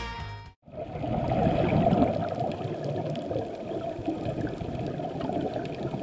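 Muffled underwater sound picked up through a camera housing: a steady rush of water noise with faint scattered clicks, close to a scuba diver.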